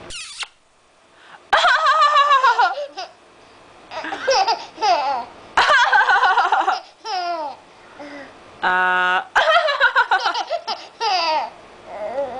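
A seven-month-old baby laughing in about five separate bursts of giggles and belly laughs, the pitch wavering and falling within each burst. The laughter answers someone's coughs.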